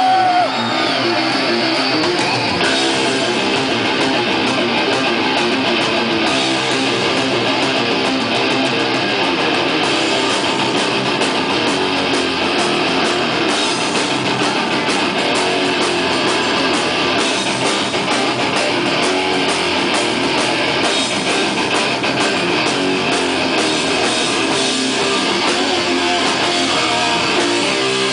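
Doom-metal band playing live: distorted electric guitars riffing over bass and a drum kit, loud and continuous.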